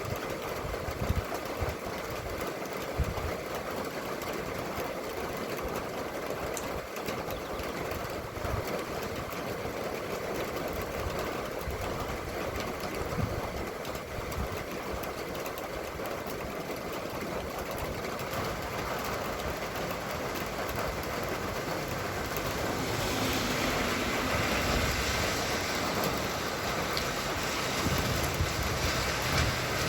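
Steady hiss of rain with passing road traffic; from about two-thirds of the way in, a vehicle engine comes close and gets louder toward the end.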